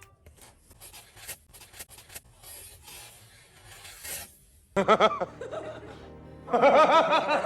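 Quiet scratching and small clicks for the first four and a half seconds, then a short burst of laughter at about five seconds and louder, wavering laughter from about six and a half seconds on.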